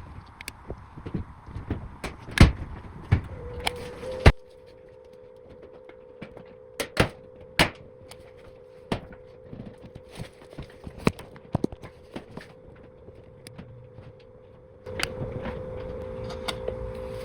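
Sharp clicks and knocks from working a hot-staple plastic welding gun into a cracked plastic panel. A steady hum starts about three and a half seconds in, and a louder rushing noise with several steady tones comes in near the end.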